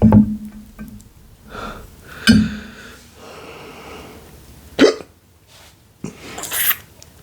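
A person hiccupping: three short, sharp hiccups about two and a half seconds apart, brought on by eating extremely spicy noodles.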